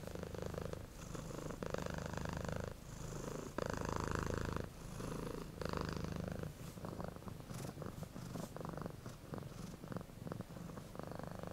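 A domestic cat purring, the rumble rising and falling with each breath about once a second, becoming less even in the second half.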